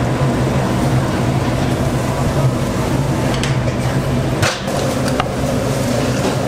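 Restaurant kitchen noise: a steady low machine hum with a few sharp knocks, one about three and a half seconds in and two more a second or so later.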